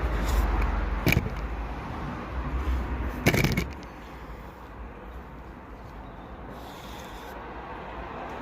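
BMW B47 four-cylinder diesel engine running with a rod knock from oil starvation, with two sharp knocks about one and three seconds in. The low running sound drops away sharply a little before halfway, leaving a quieter steady noise.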